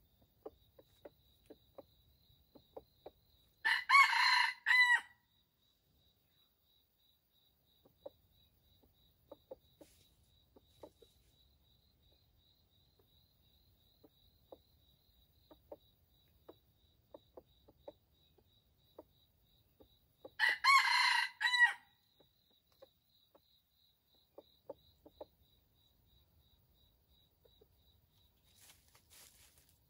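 A red junglefowl rooster (wild chicken) crowing twice, about four seconds in and again about twenty seconds in, each crow about a second and a half long, with short soft clucks in between.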